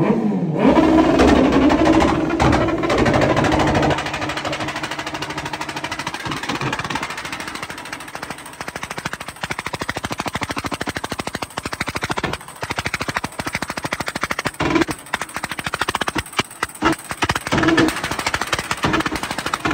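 Honda CBR650R inline-four revved hard for the first few seconds, then a long run of rapid crackling and popping from the exhaust on the overrun, from an ECU remap set up for pops and bangs. Later the crackle turns into more irregular, louder single bangs.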